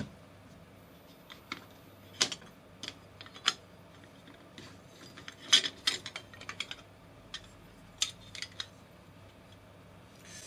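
Scattered light clicks and clinks of small electrical parts, a stainless-steel switch plate among them, being handled and set down on a steel-plate tabletop; the loudest tap comes about five and a half seconds in.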